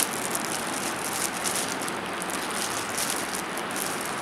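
Clear plastic packaging bag crinkling and rustling as hands handle it and pull it open, with many small sharp crackles throughout.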